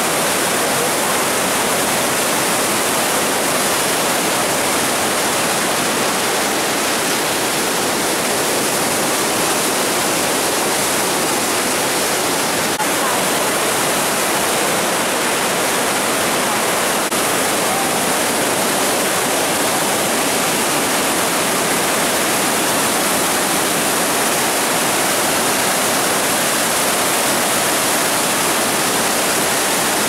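The Rhine Falls, a massive river waterfall, pouring and crashing in a loud, steady, unbroken rush of water.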